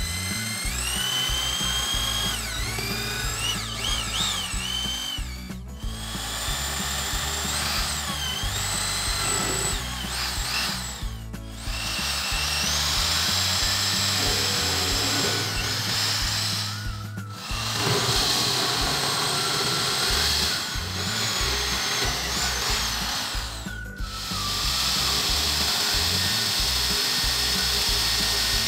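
Drill press boring holes into a wooden block. The motor's whine dips in pitch and recovers as the bit bites into the wood, in several runs separated by short breaks.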